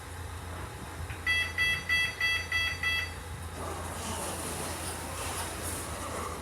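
Lift's electronic beeper sounding six quick beeps, about three a second, followed by a rush of noise.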